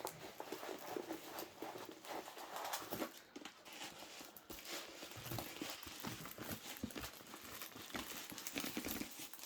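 Faint handling noises from a diamond painting kit being unpacked: irregular light taps, clicks and rustles of plastic packaging and kit parts.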